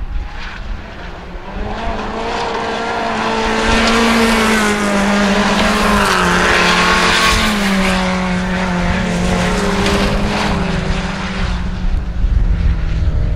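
Engine of a 1400cc-class rallycross car running hard, its note rising and falling in pitch as it comes close, loudest midway, then fading. Wind rumbles on the microphone throughout.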